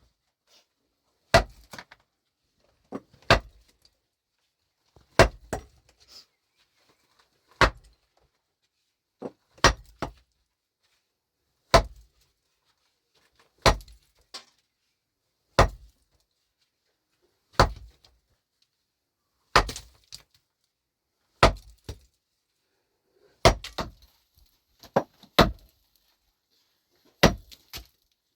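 Slow, steady blows of a heavy hand tool, about one every two seconds, each a sharp strike followed by a few small clatters of loosened material.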